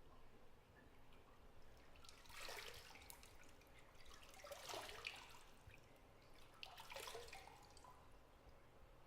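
Bathwater splashing and dripping softly in three short bursts a couple of seconds apart, over a quiet bathroom background.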